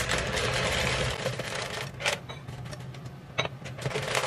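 Dry short pasta poured from a glass container into a pan of water: a dense rattle as the pasta slides out over the first second, then a few separate clicks as the last pieces tip out.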